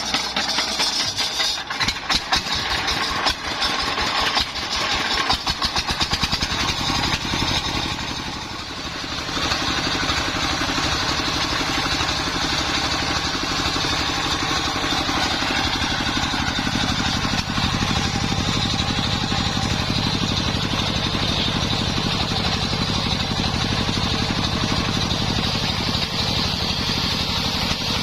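Engine driving a homemade circular saw rig, running loud and steady with a fast even beat. It comes in suddenly, dips briefly about eight seconds in, then runs on evenly.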